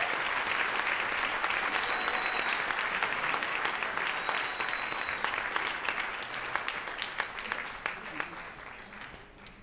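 Concert audience applauding, the clapping thinning out and fading away over the last few seconds.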